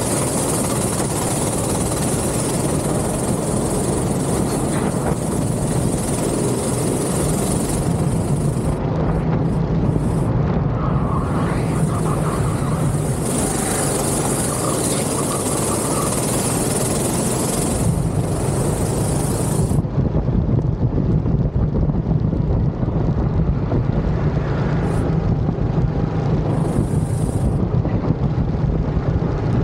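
Go-kart engine running with a steady drone, with wind noise on the microphone.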